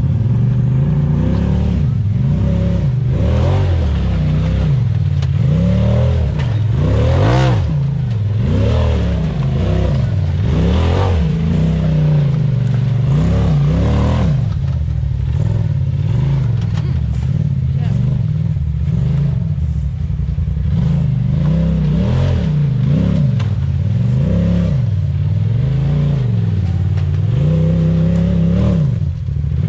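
Side-by-side UTV engine revving up and down again and again while rock crawling, with a few knocks from the machine working over the rocks.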